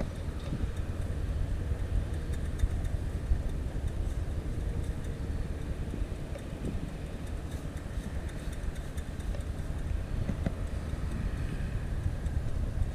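Steady low rumble of distant road traffic, with no single vehicle standing out.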